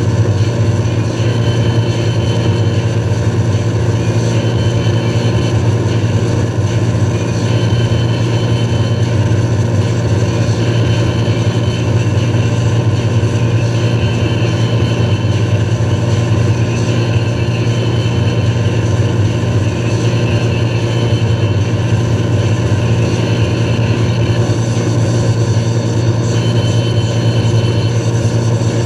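Towing motorboat's engine running steadily under way, a constant low hum, with the rush of water from the boat's wake.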